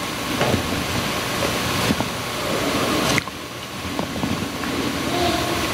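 Steady hiss of room tone with a faint constant hum and a few soft clicks; the hiss drops a little about three seconds in.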